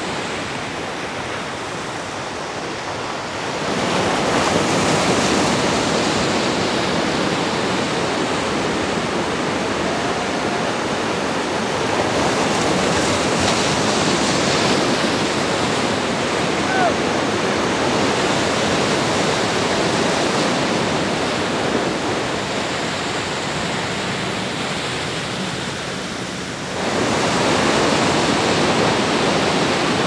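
Ocean surf: a steady rush of breaking waves and whitewater, swelling louder about four seconds in and again near the end as waves break.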